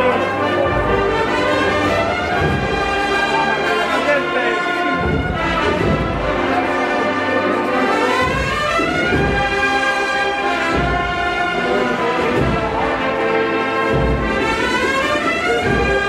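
Agrupación musical, a Sevillian cornet, brass and drum band, playing a Holy Week procession march: a brass melody over bass drum strokes about every one and a half seconds.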